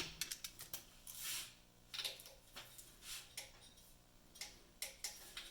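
Faint, irregular clicks and light metal ticks from hand tools: a socket wrench and sockets being worked on the oil pan bolts, over a faint steady hum.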